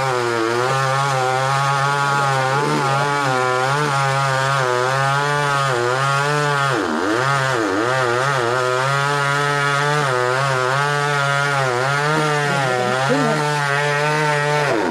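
Two-stroke chainsaw running continuously while cutting into a tree trunk. Its engine pitch wavers up and down with the load, drops sharply about seven seconds in and then climbs back.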